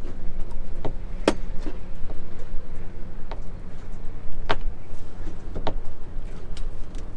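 Handling noise as a channel catfish is unhooked in a landing net on the boat deck: about half a dozen sharp knocks and clicks a second or so apart, over a steady low rumble with a faint hum.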